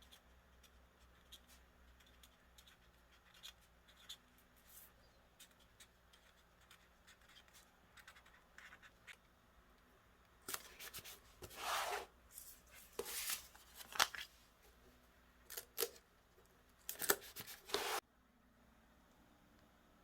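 Close handling noises: a few light clicks and ticks, then from about halfway through a run of louder rasping strokes in irregular bursts, like cutting or tearing, which stop abruptly near the end.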